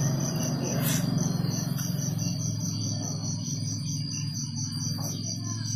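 Crickets chirping in an even, fast pulse of about five chirps a second over a steady low hum; a soft hiss fades out about halfway through.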